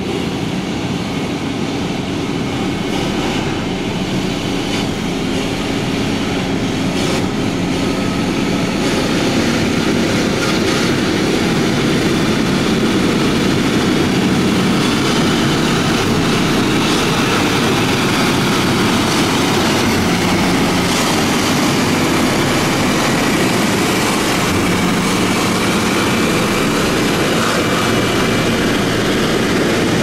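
Heavy road-building machine's diesel engine running steadily at work, growing a little louder about ten seconds in.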